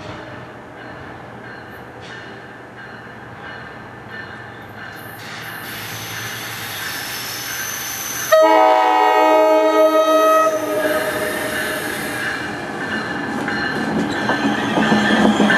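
New Jersey Transit ALP-46A electric locomotive approaching a station. A little over halfway through, its multi-chime air horn sounds one long chord that starts suddenly. After that the rumble and wheel noise of the train grow louder as it pulls in.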